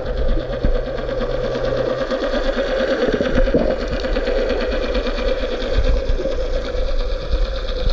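A steady, machine-like hum with a fast, fine rattle running through it, and a low steady drone under it for the first two seconds.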